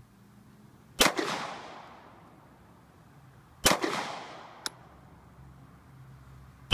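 Glock pistol fired three times, a few seconds apart, each shot with a short echoing tail.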